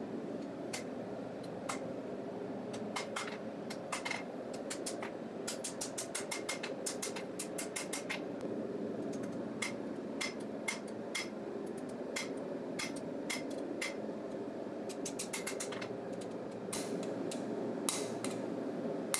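Square-faced hammer striking hot 1/4 inch steel bar on the anvil, drawing out a knife heel with light, precise blows: dozens of quick strikes in uneven runs, each with a short metallic ring. Under them runs the steady rushing noise of the lit forge.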